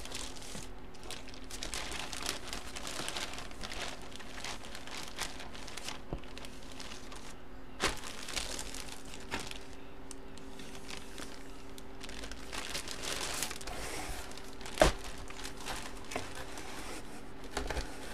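Clear plastic bag crinkling and rustling in bursts as a jersey inside it is handled and folded, with two sharp knocks, the louder one about three quarters of the way in.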